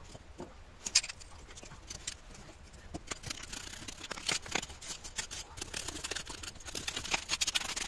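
Screwdriver scraping and picking packed casting sand off a freshly sand-cast metal Pelton wheel bucket: quick, scratchy scrapes and clicks of steel on metal and grit, with one sharp click about a second in, getting busier in the second half.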